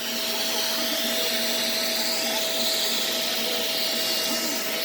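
Shark Navigator vacuum cleaner running steadily just after being switched on: an even rush of air with a steady motor whine.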